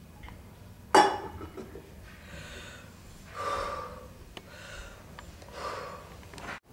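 A person breathing deeply and audibly, about four long breaths in a row, as a home remedy for hiccups. A sudden sharp gasp about a second in is the loudest sound.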